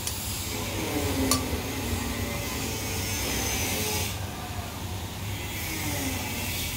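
Hissing spray in two long bursts, the first lasting about four seconds and the second starting near the middle, each cutting off suddenly. A sharp click comes about a second in, and a steady low hum runs underneath.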